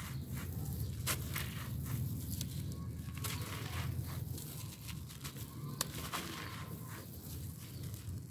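Hands squeezing and crumbling a gritty grey sand-and-grit mix, the grains grinding and pouring through the fingers, with scattered sharp crackles.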